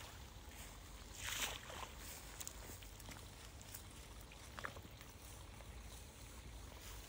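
Quiet open-air background at the edge of a muddy canal as a thrown cast net lies on the water, with one brief swish about a second and a half in and a faint click later on.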